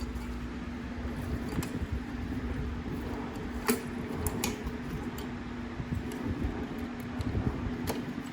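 A few sharp clicks and taps of small metal parts being handled while a carburetor is fitted back onto a Kohler lawnmower engine, over a steady background hum.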